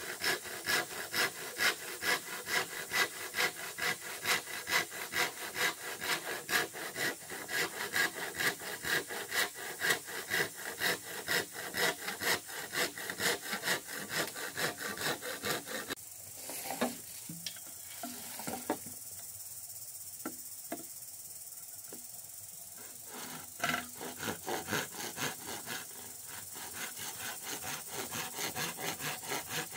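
Hand saw cutting a green bamboo pole in steady back-and-forth strokes, about two a second. The sawing stops for several seconds about halfway, with only a few light knocks, then resumes and quickens near the end.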